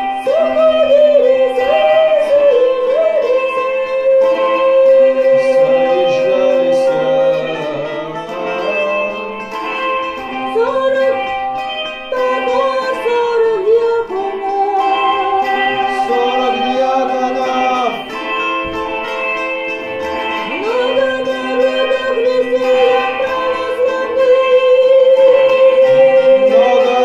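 A woman singing a Russian folk-style melody in long held notes with wavering ornaments, over a steady instrumental drone.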